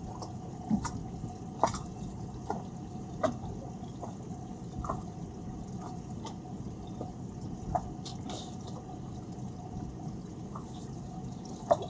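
Small waves lapping and slapping against the hulls of two boats lying side by side: irregular short splashes and drips over a low steady background.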